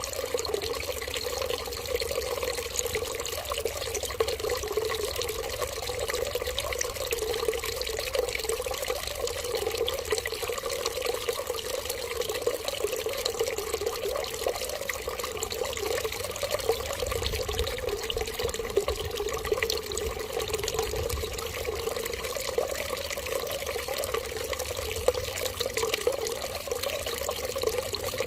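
Steady running water: an even, continuous flow that holds unchanged throughout.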